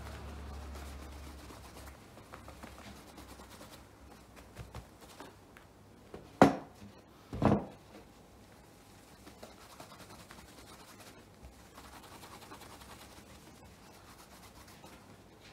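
A bristle brush mitt brushing over leather shoes, a soft scratchy rubbing. About six seconds in come two loud knocks, a second apart.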